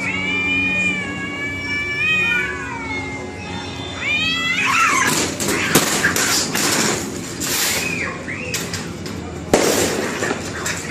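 Two cats caterwauling: long, wavering, drawn-out yowls, which about four seconds in turn to rising yowls and then harsh screeching as the cats break into a fight. A sudden sharp knock near the end.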